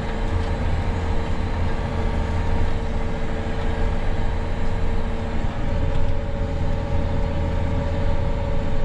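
John Deere 9R 490 articulated tractor's diesel engine running steadily under load while pulling a cultivator, heard from inside the cab: a constant low drone with a steady whine over it that shifts slightly higher about six seconds in.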